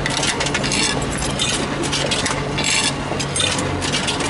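Yen coins clinking as they are fed one by one into the coin slot of a restaurant meal-ticket vending machine, about one clink a second, over a steady low hum.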